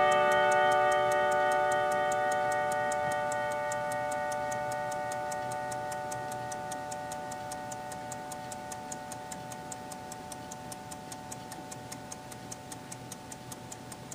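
The single one o'clock hour strike of a Kieninger AEL01 mantel clock movement rings on its chime rod, several tones slowly dying away, while the platform escapement ticks rapidly and evenly, the ticks growing plainer as the ringing fades.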